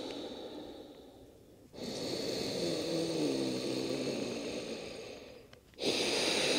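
Deep, slow breaths of a person lying belly-down doing crocodile breathing, pressing the belly into the floor on the inhale and pushing the air out on the exhale. One breath fades out, a full breath of about four seconds starts about two seconds in, and another begins near the end.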